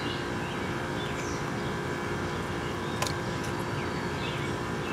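Steady low background rumble with a constant hum, and a single sharp click about three seconds in.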